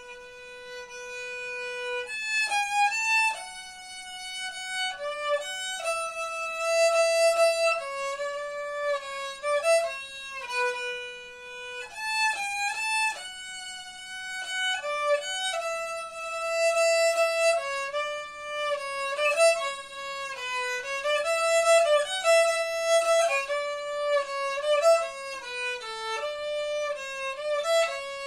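Unaccompanied solo violin, bowed, playing a melody of mostly held notes that move step by step, some sustained for a second or two.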